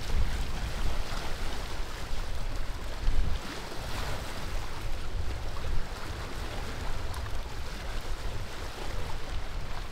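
Wind buffeting the microphone in gusts, over small lake waves lapping against a rock ledge.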